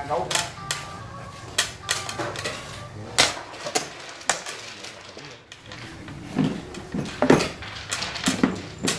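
Xiangqi pieces clacking as they are set down, picked up and captured on a wooden board: about ten sharp, irregularly spaced clicks and knocks.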